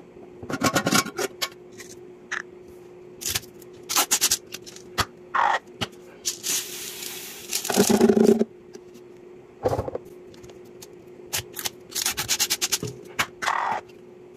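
Hands handling a glass mason storage jar with a screw-on metal lid and a plastic bottle of laundry scent beads: a run of sharp clicks, taps and scrapes, with a few longer rustling scrapes, the longest about six to eight seconds in. A faint steady hum runs underneath.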